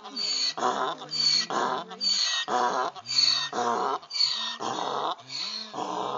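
Donkey braying: a long run of hee-haws, a high in-breath note and a lower out-breath note alternating about twice a second.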